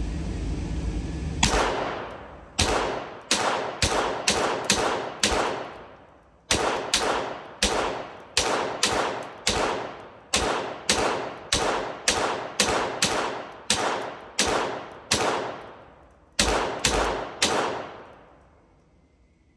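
Smith & Wesson M&P 15-22, a .22 LR AR-style rifle, fired semi-automatically at an indoor range: about thirty shots at two to three a second, in three strings with short pauses about five and sixteen seconds in, each shot echoing off the range walls.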